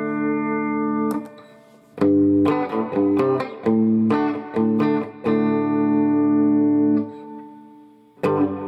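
Electric guitar played through a guitar amplifier: a held chord that stops about a second in, then after a short pause a run of short chords, ending in a long held chord that cuts off near the end, with a new chord struck just as it ends.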